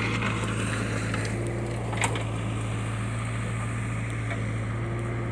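JCB backhoe loader's diesel engine running steadily with a low drone, and a single sharp knock about two seconds in.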